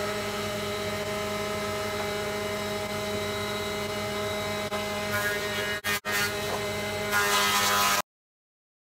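Woodworking machinery, a jointer-planer with its dust extractor, running with a steady hum. There are two very short breaks just before six seconds in and a louder hiss near the end. The sound stops abruptly about eight seconds in.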